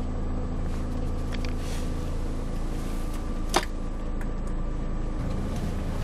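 Iveco Stralis 500 truck's diesel engine idling steadily, heard from inside the cab. A single sharp click comes about halfway through.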